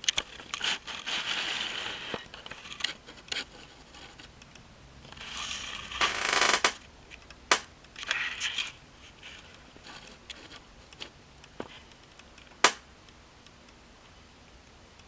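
Objects being handled: two spells of scraping and rustling, and several sharp clicks and taps, the sharpest one near the end.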